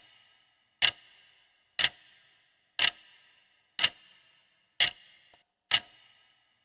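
Clock-like ticking: seven sharp ticks about a second apart, each with a short ringing tail.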